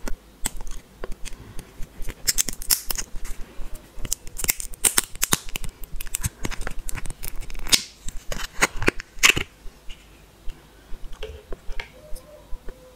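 A thin plastic candy capsule crackling and clicking as it is twisted and pulled open by hand to free a gummy ball. A rapid run of sharp crackles is densest from about two seconds in until past the middle, then thins to a few scattered clicks.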